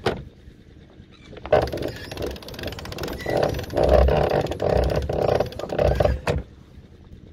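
Genoa being winched up into the groove of a roller-furler foil: the sailcloth and luff rub and rustle in a dense stretch with fine rapid clicks, from about a second and a half in until about six seconds, after a sharp knock at the start.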